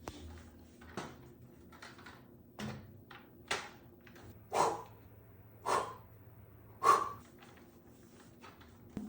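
A back being cracked: a run of short cracks and thuds, about one a second, growing louder, with the three loudest coming about halfway through and near the end.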